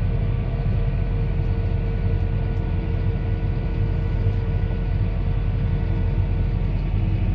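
Tractor engine running steadily under load while it pulls a fabric-laying implement: a constant low rumble with steady engine tones over it.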